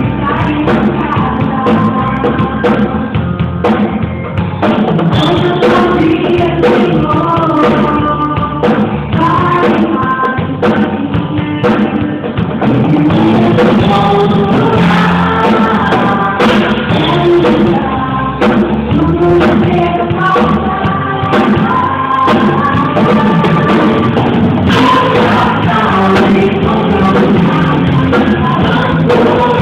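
A song with a singing voice over a band with drum kit, playing steadily.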